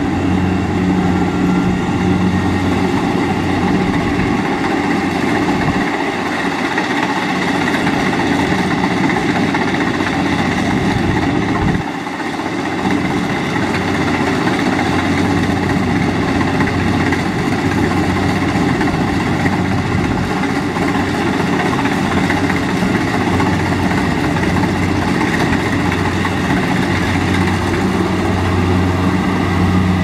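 Kubota DC-70 combine harvester running steadily under load, its diesel engine and machinery making a continuous drone with a low hum. The sound dips briefly about twelve seconds in.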